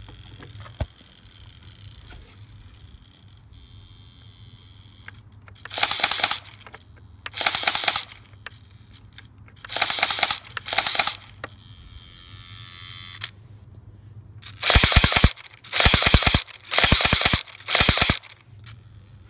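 Airsoft pistol mounted under a quadcopter, its trigger worked by a servo, firing eight short bursts of rapid shots: four spaced apart, then four in quick succession near the end.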